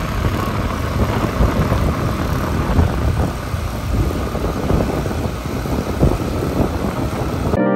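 Wind rushing over the microphone on a moving motorbike: a loud, steady rush with uneven low buffeting. It cuts off suddenly near the end.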